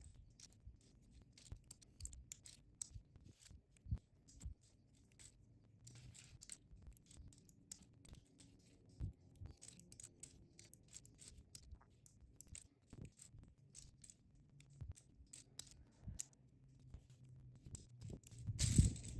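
Small plastic clicks and scrapes, irregular and fairly quiet, as keycaps are wiggled off loose mechanical keyboard switches one after another. The clicks grow louder near the end.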